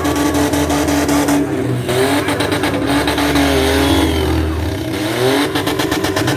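Demolition derby cars' engines running and revving, the pitch rising and falling several times.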